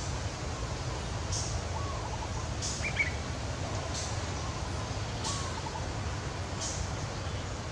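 Birds calling: a short, high note repeats about every second and a half, with a few softer falling chirps and one sharper chirp about three seconds in, over a steady low rumble.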